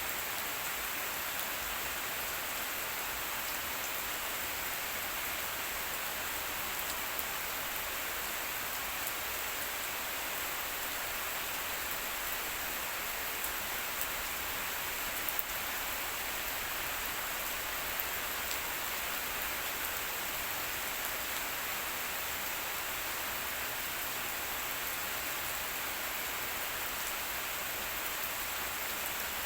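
Steady rain falling on surfaces, with a few individual drops ticking now and then.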